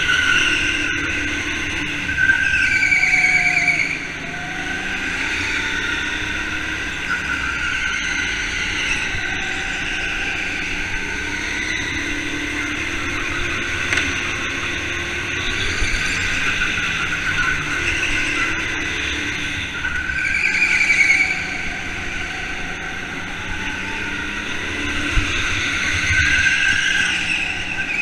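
Go-kart engine racing around a track, its pitch rising as it accelerates and falling back as it slows, over and over. The loudest pulls come about two seconds in, around twenty seconds and near the end.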